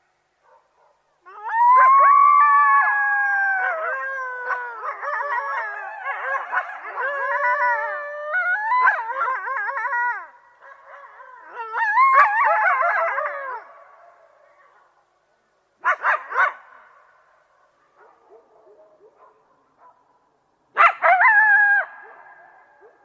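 A group of coyotes howling and yipping together, several wavering voices overlapping, starting about a second in. After a brief lull a shorter outburst follows, then brief bursts of calls near the middle and again near the end.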